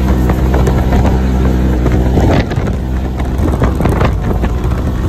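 ATV with a 1000 DOHC engine running steadily while riding along a gravel trail, with short knocks and rattles over the rough ground. The level drops a little about halfway through.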